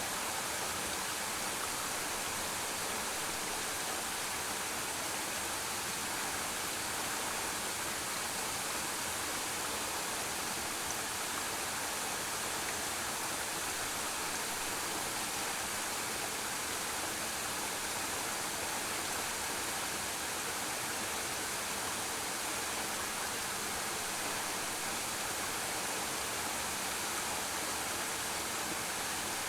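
Waterfall pouring steadily into a pool, an even rushing hiss of falling water with no let-up.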